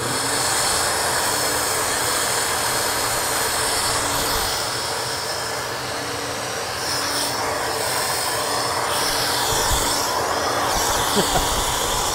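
SuperFlow SF-1020 flow bench running, its big fans drawing air through the exhaust port of a 12-valve Cummins cylinder head with the valve open 100 thousandths. A loud, even rush of air with a steady fan hum underneath, really noisy from the heavy airflow.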